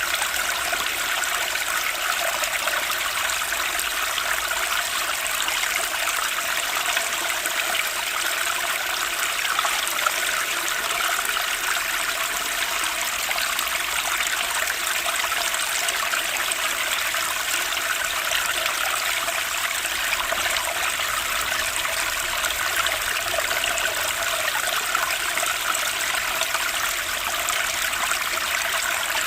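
Stream water flowing steadily, an even rushing and trickling with no pauses or changes.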